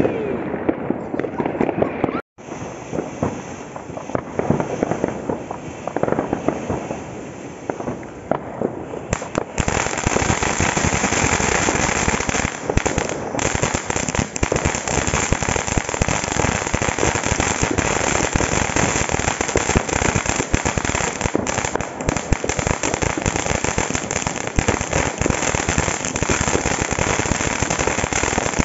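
Ground firework fountain spraying sparks, a steady hiss full of dense crackling, growing louder about nine seconds in.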